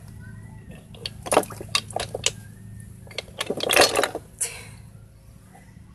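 Spider conch shells clicking and knocking against each other and the plastic basin: a series of sharp clicks, then a denser clatter about three and a half seconds in. A steady low hum runs beneath.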